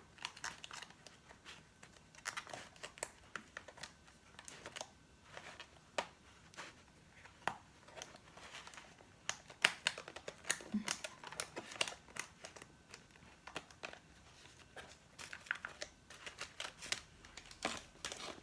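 Plastic food containers and packaging being handled: irregular crinkling, rustling and sharp little clicks and taps throughout.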